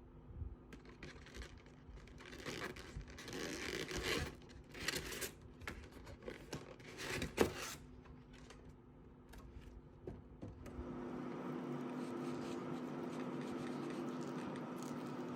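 Irregular rustling and scraping with sharp clicks, one louder click about seven and a half seconds in. A steady hum with a few fixed tones starts about ten and a half seconds in.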